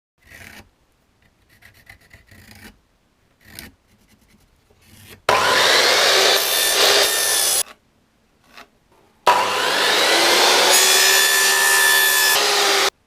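A few faint knocks and handling sounds, then a jigsaw cutting pallet wood in two loud stretches, one of about two seconds and one of about four, each starting and stopping abruptly, with the motor's whine bending in pitch under the cutting noise.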